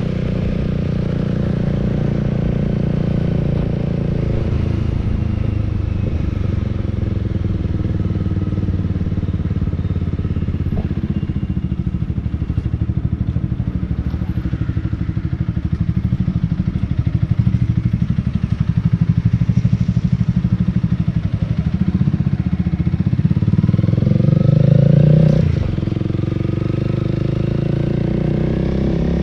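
Honda Rebel 300 motorcycle engine running as the bike rides along, heard from on board. Its revs climb from about 22 seconds in and fall away suddenly just after 25 seconds, as the throttle is closed or a gear is changed.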